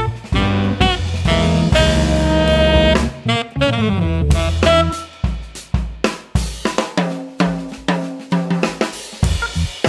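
Jazz instrumental recording: the band holds sustained notes for the first few seconds, then from about five seconds in a drum kit plays a break of sharp snare, bass drum and cymbal hits, punctuated by short notes from the band.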